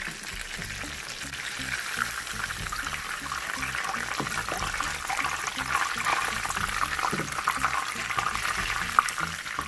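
Chicken frying in a pan of hot oil: a steady sizzle with small crackles, growing louder over the first couple of seconds.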